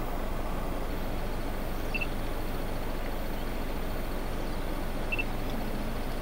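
Steady rushing outdoor background noise at an even level, with two short high chirps about three seconds apart.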